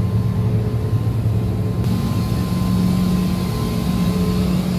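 Steady cabin noise of a private jet in flight: a continuous rush of engine and air noise over a low hum, with a faint steady whine. The hiss turns brighter about two seconds in.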